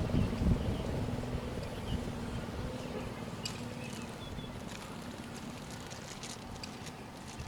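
ACA P-15 mechanical fire siren winding down after its test signal, its low steady tone fading out over the first few seconds.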